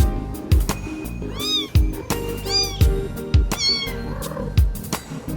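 Kitten mewing three times, high-pitched calls that rise and fall, over background music with a steady beat.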